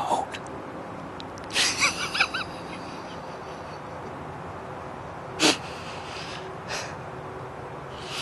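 A man laughing in a few breathy bursts, the loudest a short sharp puff of breath about five and a half seconds in.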